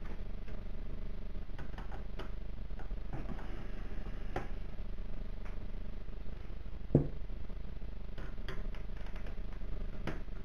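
Scattered light clicks and knocks of hands handling a PlayStation 4's casing, its metal hard-drive bracket and a screwdriver, over a steady low hum. The loudest knock comes about seven seconds in.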